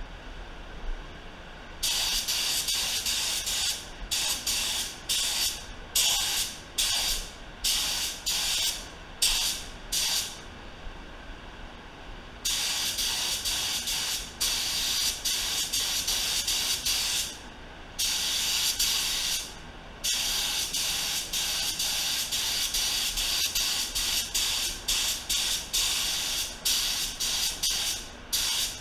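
Compressed-air gravity-feed spray gun spraying clear coat, hissing in on-off bursts as the trigger is pulled and released. Long passes of several seconds alternate with a run of short bursts, roughly one to two a second, in the first third.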